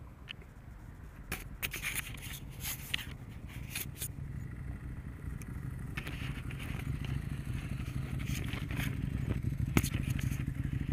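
Motorcycles approaching along a road, their engine sound growing steadily louder over the second half. Earlier there is sharp scraping and rustling of jacket fabric rubbing against the camera.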